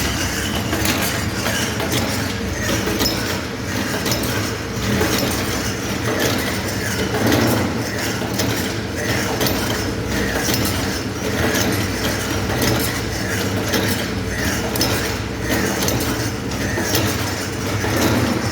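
Gauze compress cutting and folding machine running, a steady mechanical hum under a rapid, continuous clatter of clicks from its moving parts.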